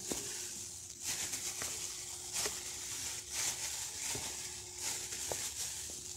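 A hand in a plastic glove kneading and mixing stiff flour dough in a plastic bowl: soft crinkling of the glove and squishing of the dough, with a few light knocks against the bowl, over a faint steady hum.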